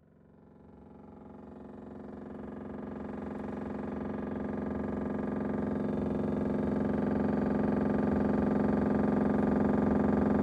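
Frost-free refrigerator's fan rubbing against frost built up in the air outlet, making a loud, rapid, continuous rattling buzz (the 'da da da' noise). It grows louder over the first few seconds, then holds steady. The frost formed because the door was not closed tightly and let air in.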